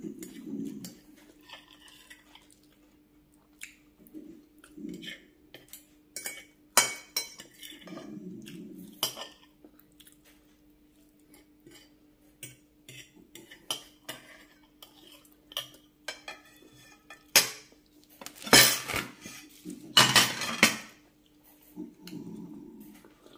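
Metal spoon and fork clinking and scraping against a glass plate in many short, sharp clicks. Near the end, two louder, longer clattering sounds as glass plates are stacked.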